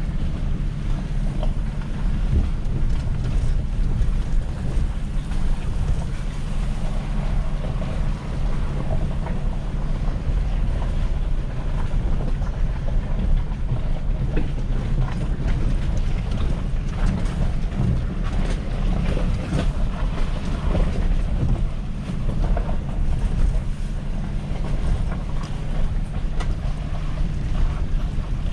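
Pickup truck driving slowly over a rough, washed-out road: a steady low engine drone with scattered knocks and rattles as it jolts over the bumps.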